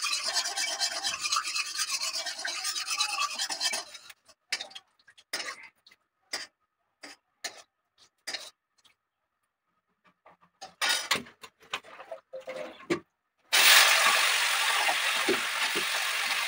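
Rhythmic scraping from cutting or peeling vegetables for the first few seconds, then scattered short scrapes and clinks with silences between. About three seconds before the end a steady, loud rushing hiss starts abruptly.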